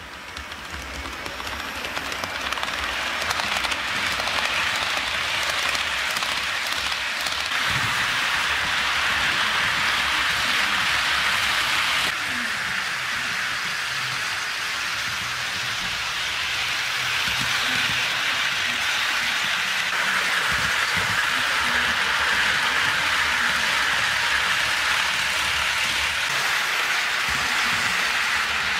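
HO scale model freight trains rolling on sectional track close by: a steady rushing hiss of metal wheels on rails and the locomotive's motor and gearing, swelling over the first few seconds as the train comes near and then holding.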